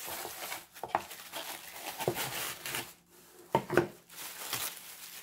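Tissue paper and plastic wrapping being pulled and torn open by hand, crinkling and rustling in uneven bursts.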